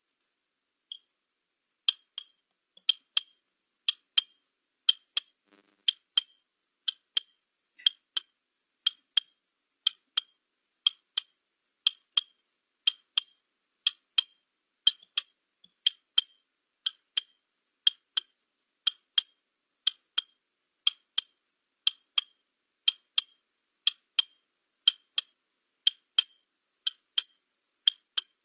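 Ticking-clock sound effect of a countdown timer, a sharp high tick about once a second, marking the 30 seconds given to answer a question.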